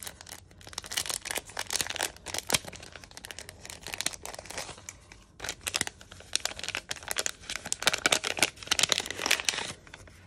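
A clear cellophane sleeve and paper packaging crinkling and rustling as hands open and handle a packet of stickers, in dense, irregular crackles that come and go.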